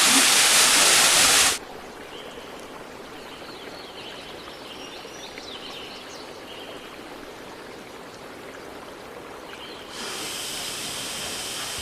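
Waterfall rushing close by, cut off abruptly after about a second and a half. Quieter outdoor ambience with faint bird chirps follows. About ten seconds in, a steady rushing noise starts again, less loud than the first.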